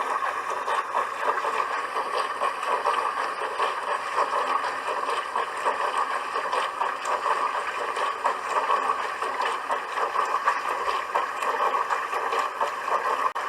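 Dishwasher running, water spraying and sloshing inside the tub in a steady rushing wash with a fast flutter and no breaks.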